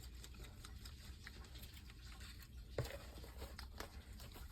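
Faint scattered clicks and light taps from small containers and utensils being handled on a table, with one sharper knock just past halfway.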